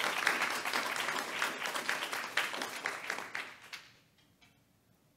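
Audience applauding, a dense patter of many hands that fades out about four seconds in.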